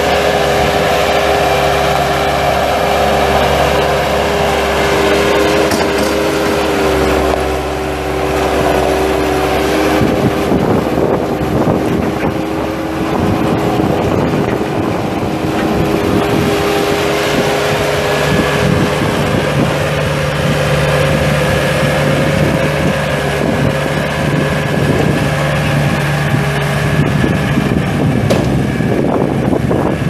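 Bobcat 863 skid steer's Deutz four-cylinder diesel engine running steadily. About ten seconds in the sound turns rougher and noisier, with wind on the microphone.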